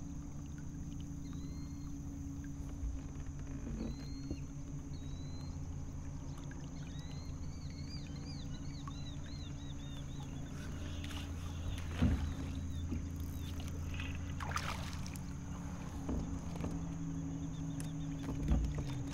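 A small boat motor running steadily with a low hum. Birds chirp briefly several times in the first half, and there are two sharp knocks, one about two-thirds of the way in and one near the end.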